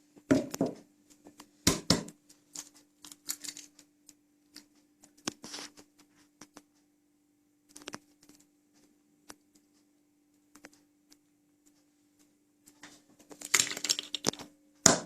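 Eggs knocked and cracked against the rim of a bowl, with scattered clicks and taps of shell on the bowl as yolks are separated from whites, and a louder flurry of clicks near the end. A faint steady hum runs underneath.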